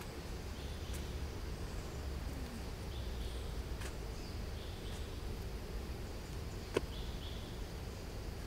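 Outdoor woodland ambience: a steady high insect drone over a low rumble, with a few short faint chirps and one sharp click about seven seconds in.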